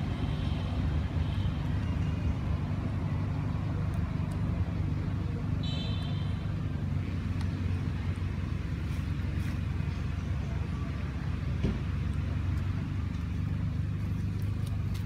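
Steady low motor rumble, with a brief high-pitched chirp about six seconds in.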